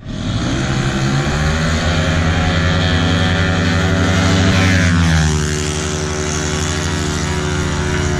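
Two Yamaha Mio scooters' single-cylinder four-stroke engines revving high and steady down a drag strip, their pitch dropping as they pass about five seconds in.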